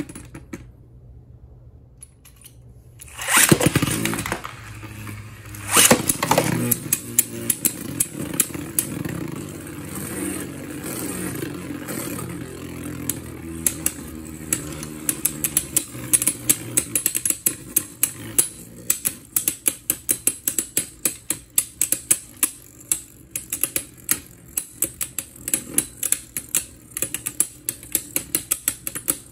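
Beyblade spinning tops whirring as they spin in a plastic stadium, with rapid sharp clacks as they strike each other, the clashes coming thick and fast in the second half. Two loud rushing bursts come about three and six seconds in.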